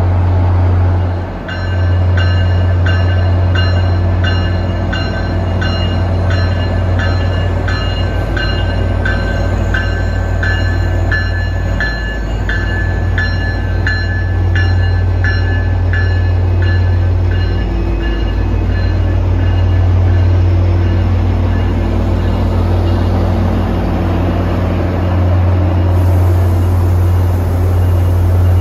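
Diesel commuter-rail locomotive running with a steady, loud low drone, its bell ringing at a steady pace of about two strokes a second; the bell stops a little over halfway through while the engine keeps running.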